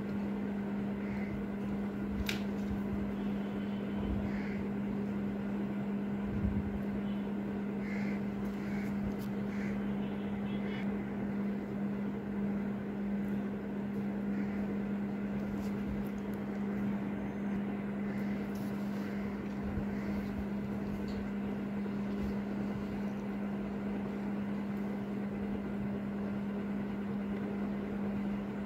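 A steady, even hum with one unchanging low tone, like a fan or other small machine running, with a few faint clicks of a small screwdriver and tweezers on the watch movement's parts, the clearest about two seconds in.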